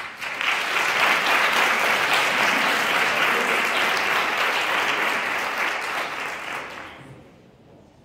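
Audience applauding, starting all at once and fading away about seven seconds in.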